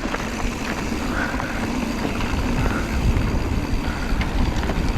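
Wind buffeting an action camera's microphone over the rolling rumble of a Pivot Switchblade 29er mountain bike on a dirt trail, with a few faint clicks and rattles from the bike.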